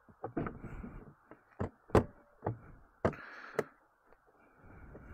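Hard plastic saddlebag lid on a Can-Am Spyder F3-T being pushed and knocked against its latch, a series of sharp knocks and clacks with scuffing in between. The lid is hard to close.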